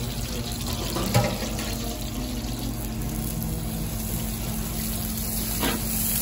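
Sliced onions frying in oil in a large steel cooking pot, a steady bubbling hiss. A slotted steel ladle stirring them knocks against the pot, sharply about a second in and again more softly near the end.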